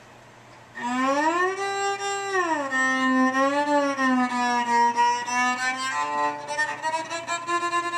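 Electric cello played with a bow: after a quiet first second, long sliding notes that glide up, hold, glide back down with vibrato, then settle on two new held notes near the end.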